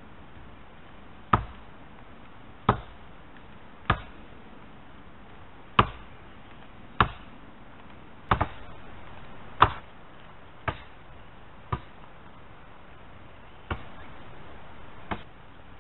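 Dead wood being chopped: about eleven sharp strikes, one every second or so, with a quick double strike about halfway through.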